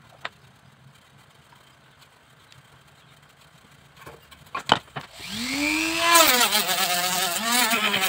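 Small cordless drill fitted with a sanding drum: a few sharp clicks as it is handled, then about five seconds in its motor starts and winds up in pitch, and from about six seconds it sands a bamboo frame, loud and rasping, its pitch wavering under load.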